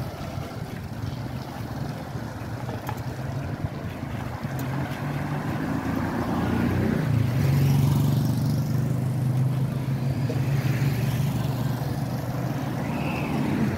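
Road traffic passing on a wet road, heard from a moving bicycle: a motorcycle engine running steadily, loudest from about seven seconds in, over a constant hiss of wind and tyres.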